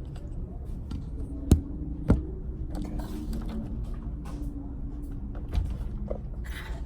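Hands working on an RC truck: light rustling and scraping of plastic parts, with two sharp knocks about a second and a half and two seconds in and a softer knock near the end.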